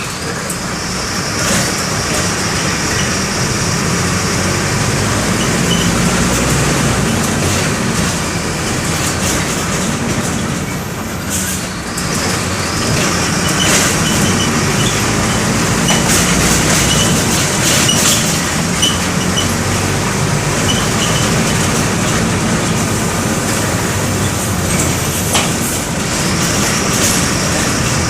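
Mercedes-Benz OF-1519 bus under way, heard from aboard: its OM 924 LA four-cylinder diesel running steadily, with road noise, body rattles and an occasional knock.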